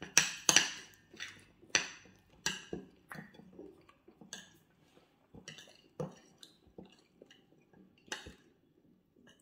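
Metal spoons scraping and clinking against ceramic plates as food is scooped up, in irregular sharp clicks several times a second, loudest in the first second.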